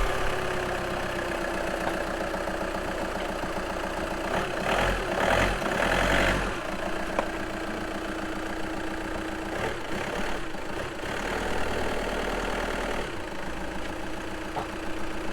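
Volkswagen 2.0 TDI (CJAA) common-rail diesel engine idling steadily just after start-up, with a louder, rougher stretch around five seconds in.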